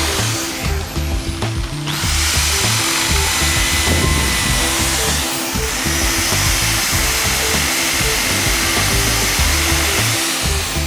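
Drill-driven wire wheel brush scrubbing rust off a steel wrench, pausing briefly about a second in, over background music.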